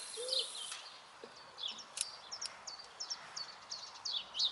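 Small songbirds singing, a run of short high chirps repeated every fraction of a second, with one low coo near the start. A steady hiss stops abruptly a little under a second in, and there is a single sharp click about two seconds in.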